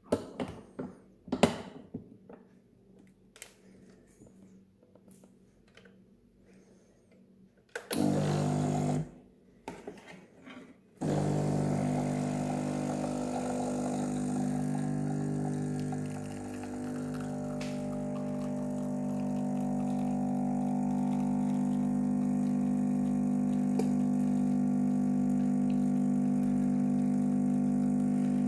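A few clicks as the portafilter is locked into an espresso machine's group head. About eight seconds in, the machine's pump runs in a short burst, pauses, then starts again at about eleven seconds and runs with a steady hum as the espresso shot is pulled, dipping briefly about halfway through.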